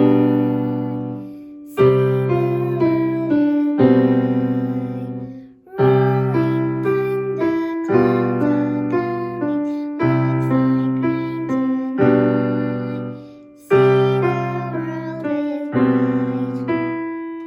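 Piano playing a simple tune without singing. Chords with a low bass note are struck about every two seconds, a few melody notes are played over each, and each chord is left to ring and fade.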